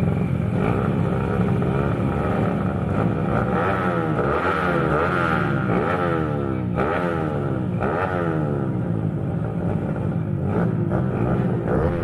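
Bored-up Kawasaki KLX drag bike's single-cylinder four-stroke engine revved in repeated blips, its pitch rising and falling about once a second.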